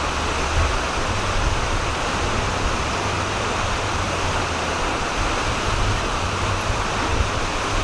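A river rushing steadily, an even, unbroken water noise with a low rumble beneath it.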